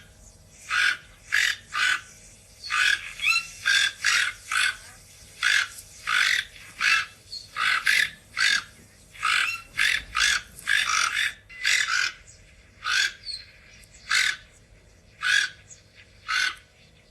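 An animal giving short, sharp calls over and over, about one or two a second at uneven spacing.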